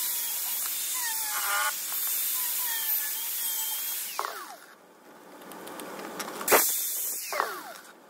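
A small handheld power tool cutting a plastic motorcycle side panel, a steady high-pitched hiss. It dies away about halfway through, then starts again with a sharp hit before fading near the end.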